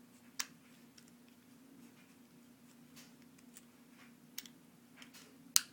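Hex driver and small steel screws clicking and tapping against a Tekin Redline brushless motor's aluminum housing as the end-bell screws are driven in: a few sharp isolated clicks, the loudest near the end, over a faint steady low hum.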